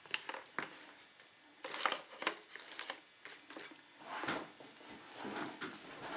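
Scattered light metallic clicks and clinks of a euro lock cylinder and its small parts being handled, with a few soft rustles around the fourth to sixth second.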